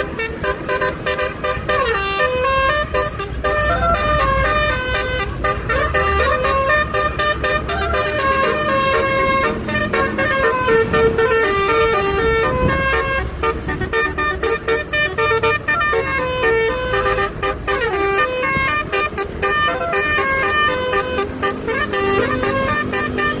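Multi-tone telolet (basuri) horn on a cargo truck playing a continuous melody of stepped notes, with a low rumble underneath.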